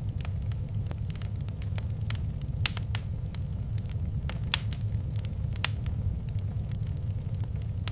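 Wood fire crackling in a fireplace: irregular sharp pops and snaps, the loudest about a third of the way in, just past the middle and a little later, over a steady low rumble of burning.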